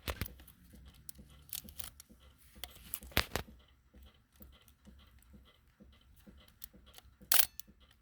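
Handling noise from a Minolta SR-1S 35mm film camera and its case: a few sharp mechanical clicks over light rustling, one right at the start, a pair about three seconds in and a louder one near the end.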